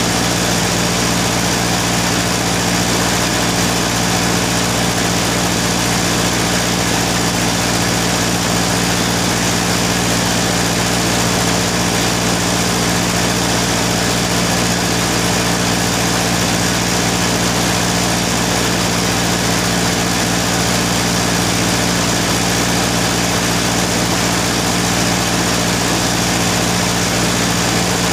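A machine idling steadily, a low hum that stays the same throughout with no starts, stops or strikes.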